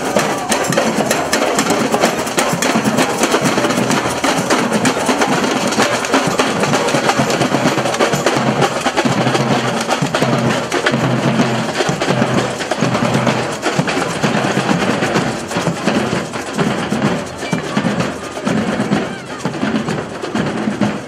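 Street marching band playing: dense drumming and percussion, with low held notes sounding for several seconds in the middle.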